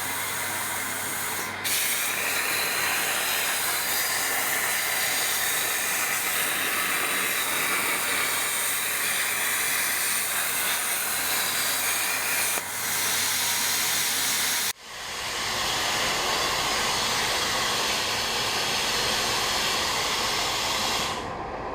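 CNC plasma cutter torch hissing steadily as it cuts 3 mm mild steel, with the fume extraction running. About fifteen seconds in the hiss cuts off abruptly and a lower, steady rushing carries on.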